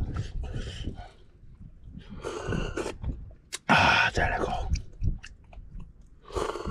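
A person eating seafood and noodles close to the microphone: chewing and biting, in about four short noisy bursts.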